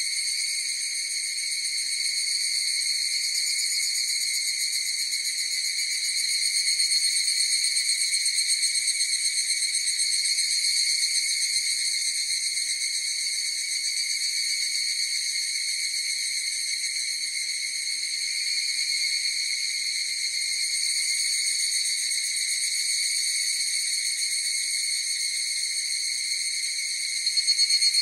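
Chorus of higurashi (evening cicadas, Tanna japonensis) calling: a continuous high, shrill trilling that swells and eases, growing louder about six seconds in and again just before the end.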